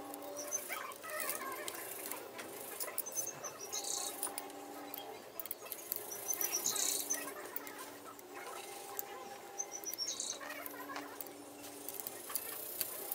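Small birds chirping in short high bursts, repeated about every three seconds, over faint clicks of metal tools.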